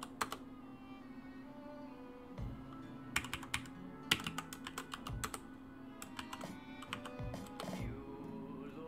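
Computer keyboard typing in scattered bursts of keystrokes, with soft background music underneath.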